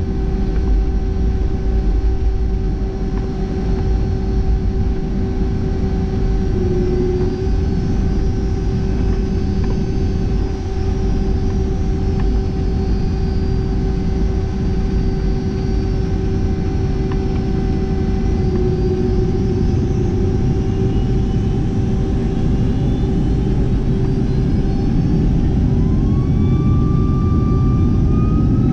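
Boeing 757-200's jet engines at takeoff power during a takeoff, heard from a window seat inside the cabin: a steady deep rumble with a steady humming tone over it. Near the end a higher whine rises in pitch.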